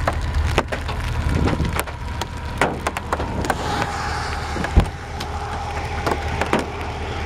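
Gusty wind rumbling on the camera microphone, with scattered sharp clicks and knocks; the loudest knock comes about five seconds in. A faint steady hum sits underneath in the second half.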